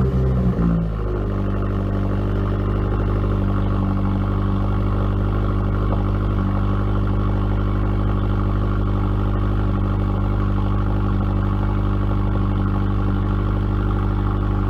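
A 2015 Subaru WRX's 2.0-litre turbocharged flat-four starts up through a newly fitted Nameless turboback exhaust. It flares briefly for about a second, then settles into a steady idle.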